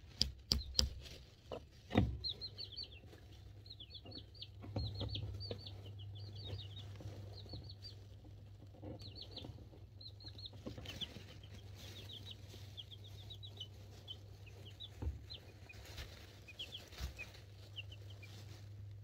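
Two-week-old chicks peeping in quick runs of short, falling chirps, with a few sharp knocks in the first two seconds and twice more near the end, over a steady low hum.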